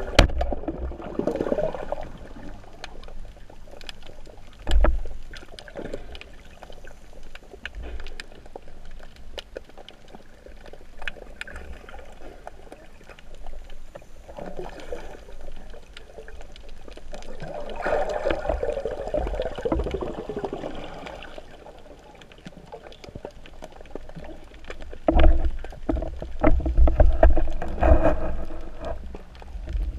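Muffled underwater noise picked up through the camera's waterproof housing on a speargun: a low rumble of water with gurgling and occasional sharp knocks. It grows louder and busier near the end, as the diver handles a speared fish on the seabed.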